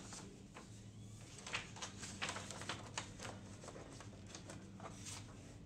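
A sheet of paper rustling and scraping in several short bursts as it is handled and slid into the paper path of a small HP DeskJet inkjet printer, with a faint steady low hum underneath.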